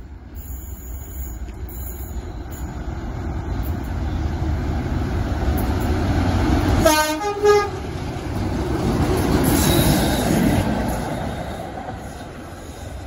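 Class 33 and Class 50 diesel locomotives approaching, their engine rumble building up, with a short two-note horn about seven seconds in: a lower note, then a higher one.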